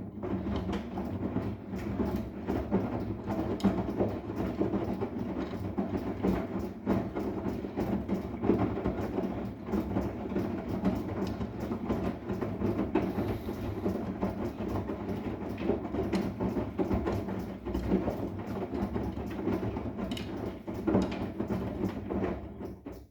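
Arçelik 10121 washing machine running its wash, the drum turning and tumbling wet laundry with a steady motor hum and many small irregular knocks and clicks.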